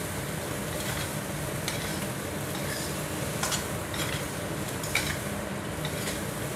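Prawns and spring onions being stir-fried in a stainless steel wok: a steady sizzle, with a metal spatula scraping and pushing the food around the pan and a few sharper scrapes. The burner has just been switched off, so the sizzle comes from the pan's leftover heat.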